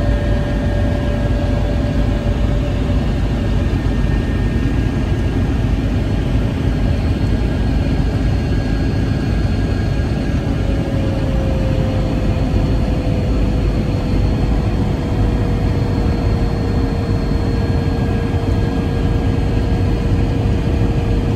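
Helicopter running: a loud, steady rush of turbine and rotor noise with a thin steady whine on top, whose pitch sinks slightly about halfway through.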